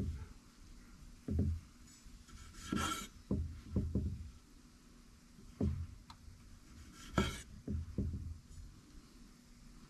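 Knife halving cherry tomatoes, a string of irregular dull knocks as the blade goes through and meets the board, with two sharper clicks about three and seven seconds in.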